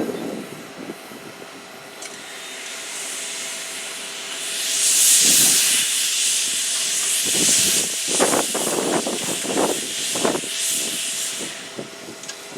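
Steam hissing from the C62 2 steam locomotive. It builds about two seconds in and is at its loudest from about five seconds in.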